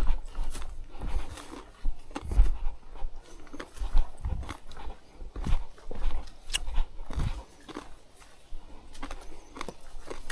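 Footsteps crunching on a rough hiking trail, irregular thumps about once a second, with crackles and clicks of dry debris and gear rustling between them.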